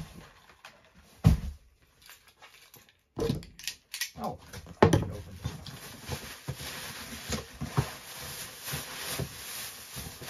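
Cardboard boxes being handled and shifted about: several knocks and thumps in the first five seconds, then steady rustling.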